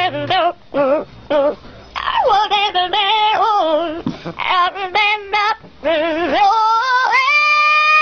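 Yellow-naped Amazon parrot singing in a wavering voice: short broken notes at first, then longer notes with a strong vibrato, ending in a rising glide into one long held note.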